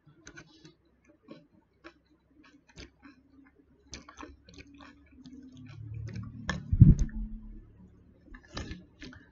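A metal fork clicking and tapping irregularly against a plastic food container and on pomelo segments, with a louder low thump about seven seconds in.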